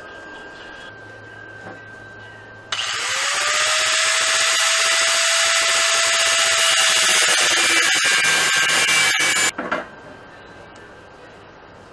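Corded electric angle grinder started about three seconds in, its motor tone rising and then holding steady as it grinds a steel frame tube for about seven seconds, then switched off suddenly.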